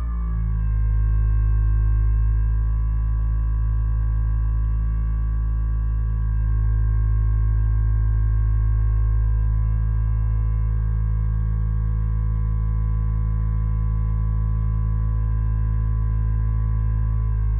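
Hyperice Vyper 2 vibrating foam roller running, its vibration motor making a steady, loud low hum and buzz under the weight of a person's feet, with a slight shift in pitch right at the start.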